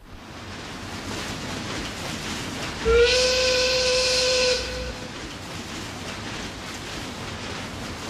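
Steamboat's steam whistle blowing one long blast, about three seconds in and lasting nearly two seconds, its pitch rising a little as it starts before holding steady, over a steady hiss.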